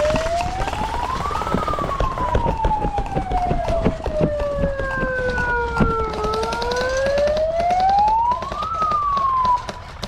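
A siren wailing slowly: its pitch climbs for about a second and a half, sinks over about five seconds, climbs again, then cuts off suddenly near the end. Faint clicks and knocks sound underneath.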